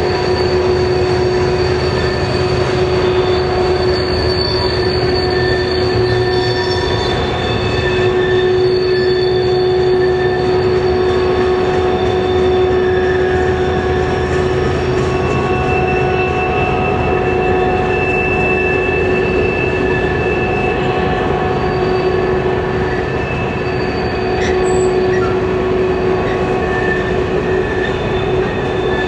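Long freight train on curving track: steel wheels squealing against the rails in several steady, overlapping tones that come and go, over the continuous low rumble of diesel locomotives.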